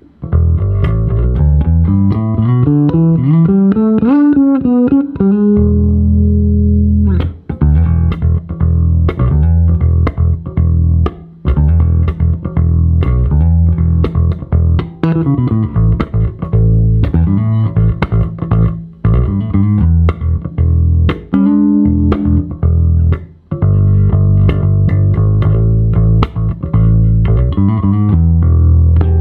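OOPEGG Stormbreaker electric bass guitar played solo. It opens with a quick climbing run of notes over the first five seconds, then moves to held low notes and busy plucked riffs broken by short pauses.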